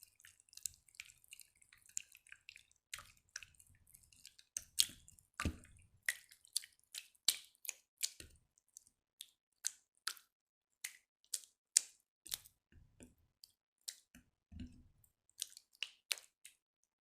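Jiggly slime being squeezed and poked by hand: a string of short wet clicks and pops, about one or two a second.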